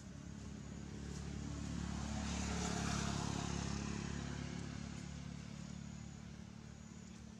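A motor vehicle driving past, its engine and tyre noise growing louder to a peak about three seconds in, then fading away.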